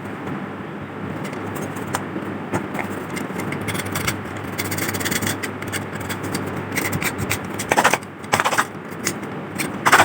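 Hand scraping and rubbing on rusty metal lamp parts, with scattered clicks and a few louder metallic knocks near the end.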